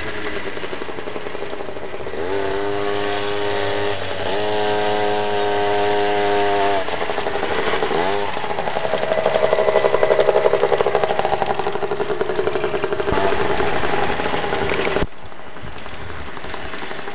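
Small engines of children's mini motocross bikes running and revving, the pitch climbing sharply about two, four and eight seconds in and holding high between. The sound drops suddenly about fifteen seconds in.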